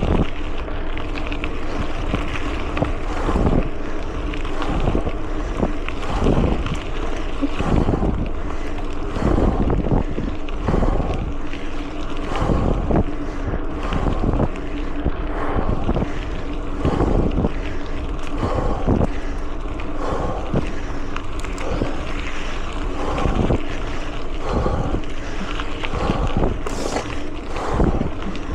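Mountain bike ride heard from a small action camera: wind buffeting the microphone over steady tyre and trail noise, with rhythmic thumps about once a second.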